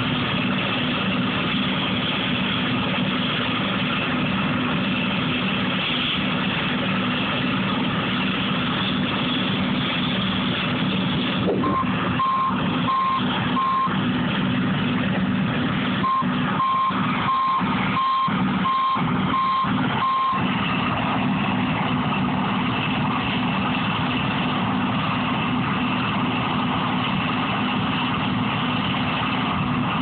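John Deere combine and Peterbilt semi running steadily as the combine unloads corn through its auger into the grain trailer. A vehicle backup alarm beeps about one and a half times a second in two spells, starting about twelve and sixteen seconds in.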